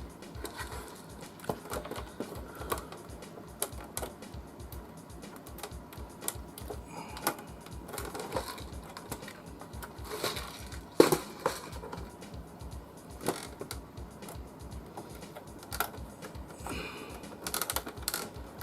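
Scattered small clicks and taps of screws, screwdriver and metal parts being handled and tried in the holes, with one louder click about eleven seconds in.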